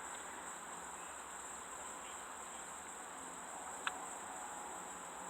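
Steady high-pitched trilling of insects, with one faint click about four seconds in.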